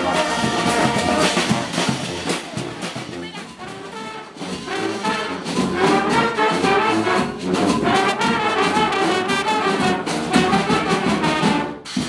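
Brass marching band playing an up-tempo tune, with trumpets and trombones carrying the melody over percussion.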